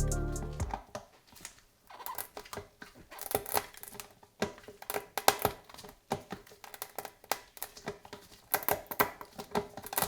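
Background music fading out, then a run of irregular sharp clicks and light knocks from hand-tool work on the tire.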